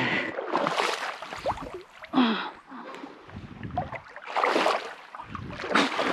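Wet squelching of legs pulling through deep, sucking mud, in several separate bursts, with a short grunt about two seconds in.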